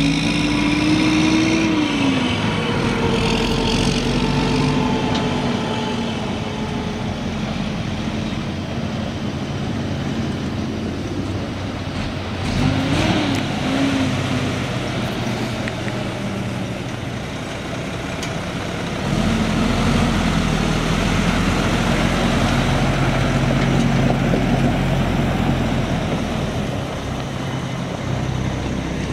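The 12-litre Mack AMI inline-six turbo diesel of a 2004 Mack Granite truck running under way, its pitch rising and dropping back several times as it revs and settles.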